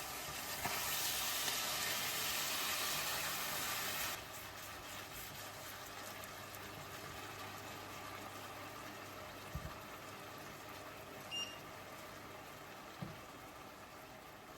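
Liquid running or pouring for about three seconds, stopping abruptly. A quieter steady bubbling follows, typical of a pan on the heat, with a few small knocks and one short high clink.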